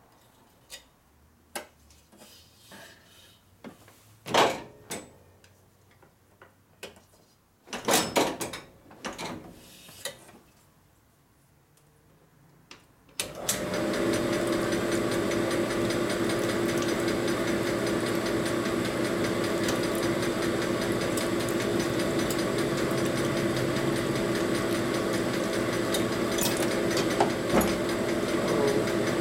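Knocks and clunks of a motorcycle cylinder being handled and fitted onto a honing machine's mandrel, then about 13 seconds in the honing machine starts and runs steadily with a hum, lightly honing the valve guide holes of a Harley-Davidson XA flathead cylinder.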